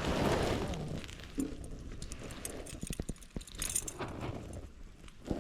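Rustling handling noise, with a cluster of small sharp clicks and clinks about three seconds in.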